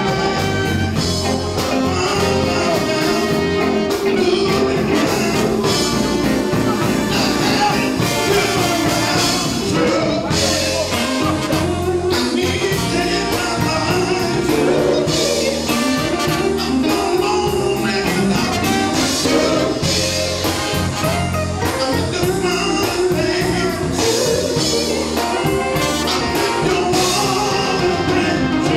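Live Southern soul band: a male lead singer with backing singers, over trumpet, guitar and a full band.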